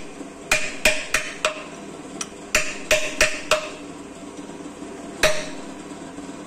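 Hand hammer striking metal at the crankshaft hub of an engine block's flywheel housing, each blow ringing metallically. The blows come in two runs of four, about three a second, with a single blow near the end.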